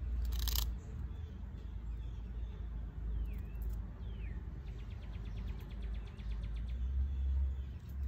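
Opossum eating bread, with one sharp crunch about half a second in over a steady low rumble. Two short falling bird chirps come near the middle, followed by a quick run of ticks at about ten a second.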